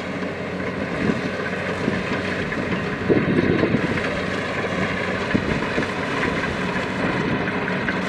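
Kubota DC-70 rice combine harvester running steadily as it cuts and threshes standing rice, its diesel engine a constant drone under the clatter of the cutting and threshing machinery.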